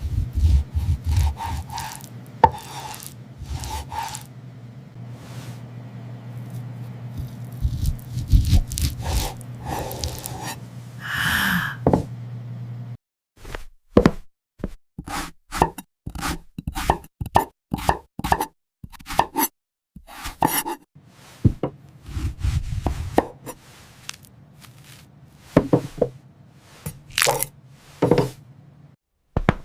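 Kitchen food-preparation sounds: a long series of knocks, scrapes and clicks. A low hum runs under the first half and cuts off suddenly about halfway through. After that come runs of sharp, separate knocks.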